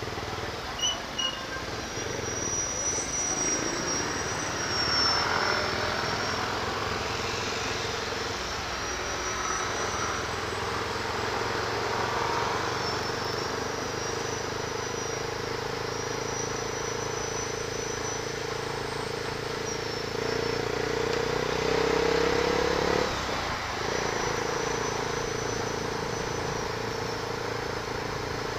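Motorcycle engine running while riding in traffic, heard from the rider's seat over wind and road noise. The engine note climbs gradually, then drops sharply about 23 seconds in. A thin high whine comes and goes.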